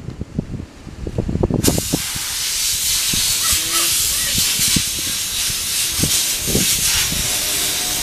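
A loud, steady hiss that starts suddenly about a second and a half in, with scattered low thumps before it.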